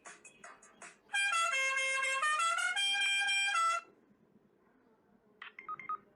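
A downloadable sound-effect clip playing back: a loud, horn-like tone stepping through several notes for almost three seconds, after a second of faint rapid ticking. A brief faint chirp sounds near the end.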